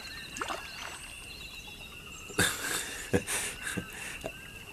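Jungle ambience: short bird chirps over a steady high-pitched drone. From about halfway there are a few brief splashes of water moving.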